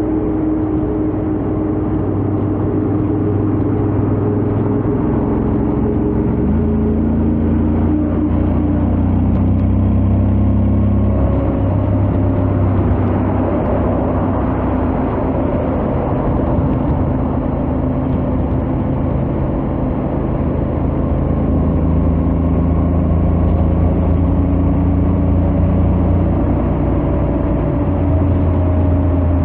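Honda X-ADV 750's parallel-twin engine through its stock exhaust, running at highway speed. Its note holds steady and shifts in steps a few times, under a steady rush of wind and road noise.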